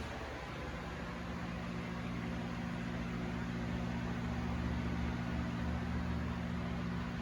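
A machine running steadily: a low hum with a few steady tones over an even hiss.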